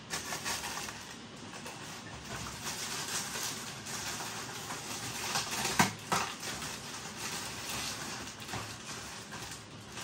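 Cardboard pretzel box being torn open and its plastic inner bag handled, with steady rustling and crinkling. A single sharp snap comes about six seconds in.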